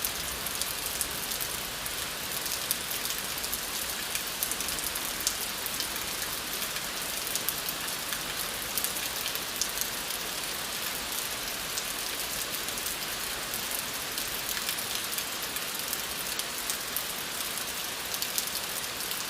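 Steady rain falling, with many fine drop ticks on a hard surface over an even hiss.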